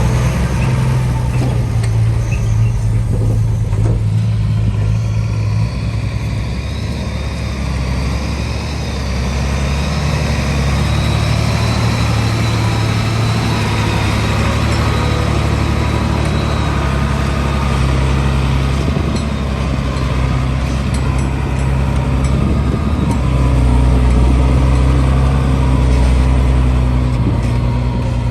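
Heavy diesel engine of earthmoving machinery running continuously under working load, its note shifting a few times as the load and revs change.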